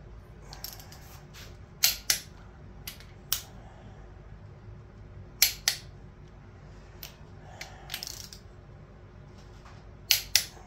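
Click-type torque wrench clicking on cylinder head bolts, the sign that each bolt has reached the wrench's set torque. Three sharp double clicks a few seconds apart, with fainter single clicks between.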